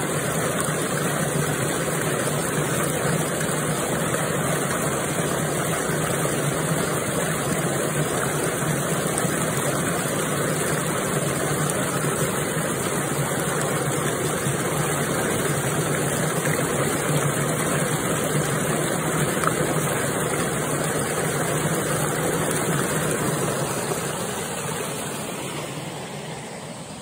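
Water gushing and churning white in a narrow concrete ditch, a steady loud rush that fades away over the last few seconds.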